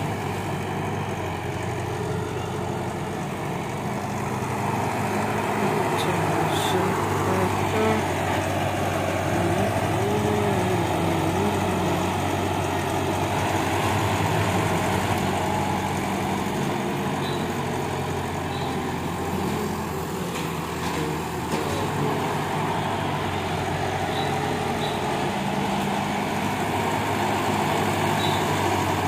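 Caterpillar hydraulic excavator's diesel engine running steadily while the machine digs and swings, its note wavering a little in the middle as the hydraulics take load.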